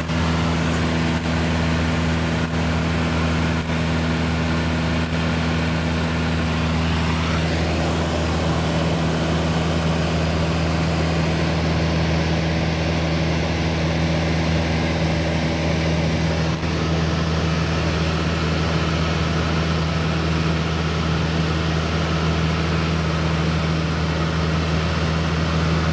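Light aircraft's engine and propeller running steadily in flight, a constant low drone heard inside the cabin.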